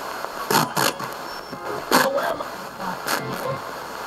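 S7 spirit box sweeping FM radio frequencies, played through a portal speaker box: a steady static hiss broken by a handful of short, chopped snatches of radio sound.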